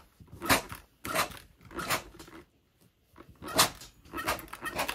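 Clothes iron sliding over denim and fused appliqué fabric: several short rough swishes, with a pause around the middle.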